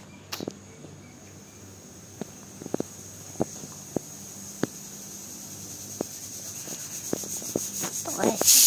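Pressure cooker hissing softly and building up, then its whistle blowing loud and steady with a high hiss of steam near the end. A few light clicks come and go over it.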